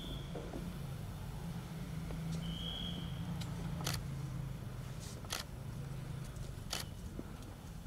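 Steady low outdoor hum with three sharp clicks about a second and a half apart in the second half, and two short high squeaks in the first few seconds.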